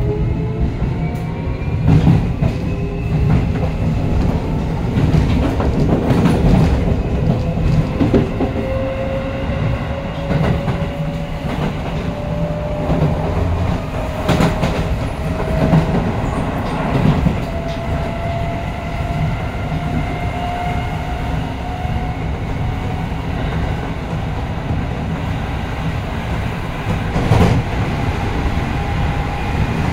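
Keio Line electric commuter train heard from inside the passenger car while accelerating: the traction motor whine climbs in pitch, over a steady rumble of wheels on rail, with a few sharp clacks as the wheels cross rail joints.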